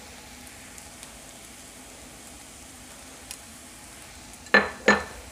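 Onions and spice powders frying in oil in a kadai, a steady low sizzle as they are stirred with a perforated steel ladle, with two sharp knocks near the end.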